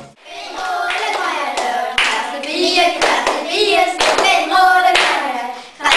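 A group of young girls singing a clapping song together, with their hand claps landing about once a second.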